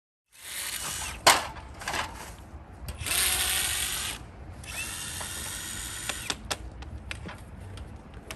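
A power tool running in several short bursts amid clicks and rattles, with a sharp click about a second in as the loudest sound.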